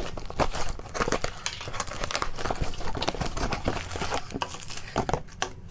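Taped cardboard shipping box being opened by hand: tape pulled off and flaps torn open, a dense run of irregular crinkling and rustling as hands work the cardboard and reach inside.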